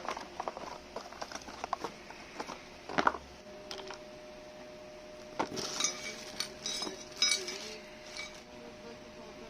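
Clicks, knocks and light metallic clinks of soldering station parts being handled and set down while unpacking, with a cluster of ringing clinks in the second half.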